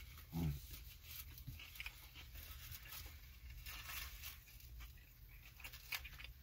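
Faint, close-up chewing and mouth sounds of a person eating a mouthful of cevapi and onion in soft lepinja bread, with small wet clicks, and a brief low hum about half a second in.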